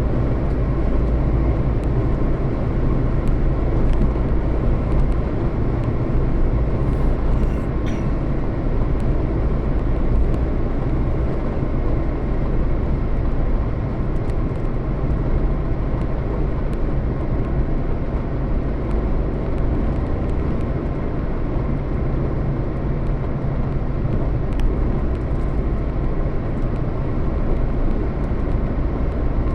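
Steady rumble of a moving vehicle, engine and road noise running evenly throughout.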